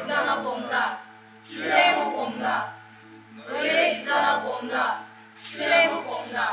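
A group of voices chanting a line together in unison four times, with short pauses between the phrases, over a low steady hum.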